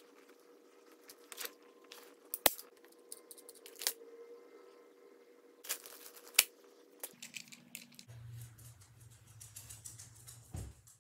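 Crushed-velvet upholstery fabric rustling and crinkling as it is pulled and tucked over a cardboard bed frame by hand, with several sharp clicks and taps. A faint steady hum underneath drops to a lower hum about seven seconds in.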